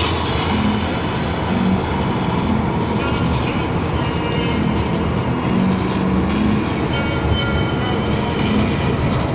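Heavy truck's engine and road noise inside the cab while cruising at highway speed: a steady drone with a wavering low engine note.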